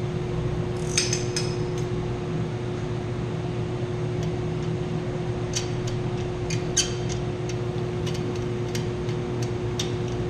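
Scattered light metallic clinks and taps of tools and bolts on a chilled-water pump's strainer housing, over a steady hum of running plant-room machinery.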